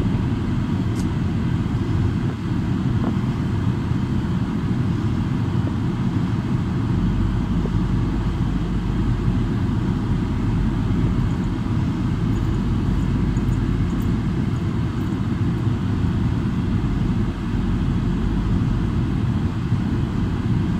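Steady low rumble of a car in motion, heard from inside the cabin: engine and tyre noise with no sudden events.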